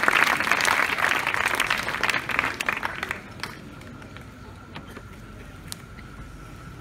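Audience applauding, fading out about three seconds in. After that, only faint scattered clicks and a faint steady whine remain.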